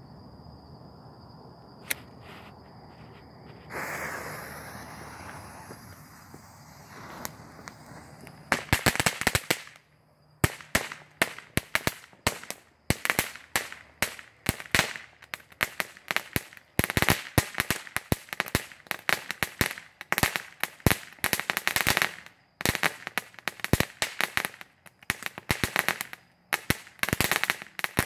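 Cracker Barrel ground firework: a short hiss about four seconds in, then from about eight seconds in a dense, rapid crackling of sharp pops in bursts separated by brief gaps.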